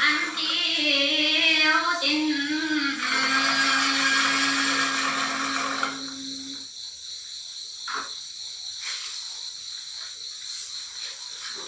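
A woman singing solo in a traditional call-and-response folk song: a wavering, ornamented line, then one long held note that breaks off about six and a half seconds in. Quieter background hiss follows, with a soft click a little later.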